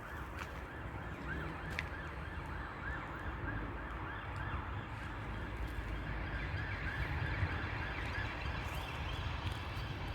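A distant electronic alarm, such as a car alarm or siren, sounding a fast repeating warble of about three rising-and-falling chirps a second, over a low wind rumble on the microphone.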